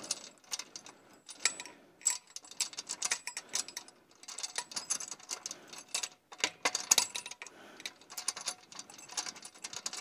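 Rapid, irregular light metallic ticks and clicks as a long screw is threaded into the clamp of a seat-post bike rack, coming in bursts with short pauses.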